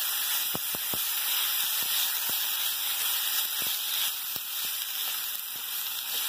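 Basmati rice shallow-frying in ghee with cumin seeds in a pan, a steady sizzle while it is stirred with a spatula, with scattered light clicks.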